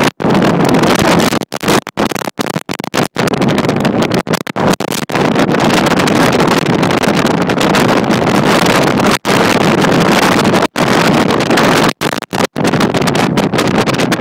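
Strong wind blasting the phone's microphone from a vehicle driving through a blizzard: a loud, steady rushing roar, cut again and again by brief dropouts.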